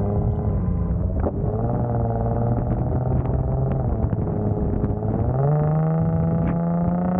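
Infiniti G37's 3.7-litre V6 running as the car drives, holding a steady note and then rising in pitch from about five seconds in as it accelerates, heard from outside the car.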